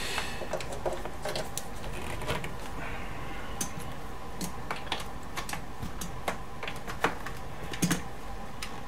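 Scattered light clicks and taps at irregular intervals, from a cable and small tools being handled on a workbench.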